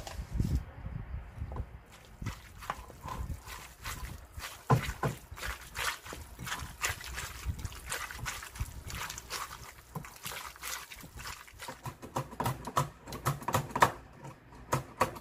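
Hands squishing and kneading seasoned, wet siraegi greens in a ceramic bowl: an irregular run of squelches and small clicks. Near the end, quicker sharper ticks of a knife cutting a red chili on a plastic cutting board.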